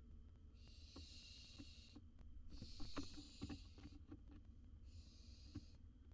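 Barn owl giving its hissing "snoring" call three times, each hiss about a second long, faint, with a few soft taps of movement in the nest box between them.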